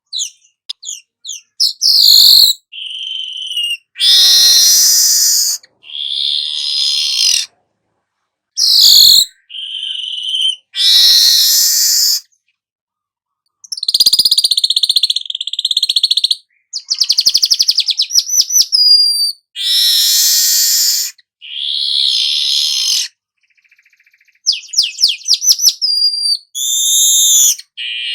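Weaver bird (manyar kepala emas) singing a series of loud, harsh, buzzy song phrases mixed with rapid trills and short high notes, separated by short pauses.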